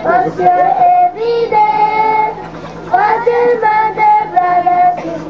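A group of young children singing a song together in one melody line, with long held notes.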